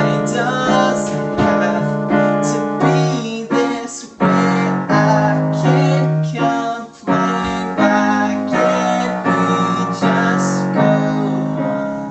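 Piano playing an instrumental passage of struck chords in a steady rhythm, with brief breaks about four and seven seconds in and fading near the end.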